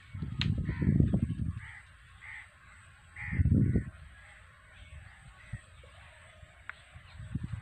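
Crows cawing repeatedly among the trees. Two loud, low rumbles on the microphone break in, one lasting about a second and a half near the start and a shorter one about three and a half seconds in.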